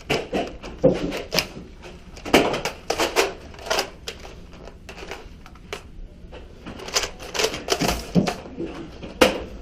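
A run of irregular sharp clicks and knocks, with a quieter lull midway.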